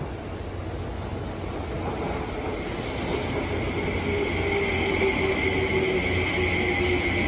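Izukyu 2100 series resistance-controlled electric train's motors and running gear getting louder as it gathers speed, with a steady whine coming in about two seconds in and a short hiss about three seconds in.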